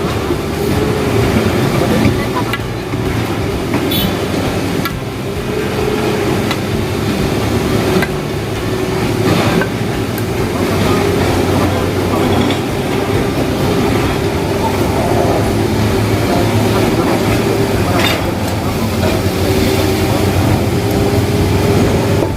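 Excavator with a hydraulic rock breaker working on andesite: the engine runs steadily under load while the breaker hammers the rock.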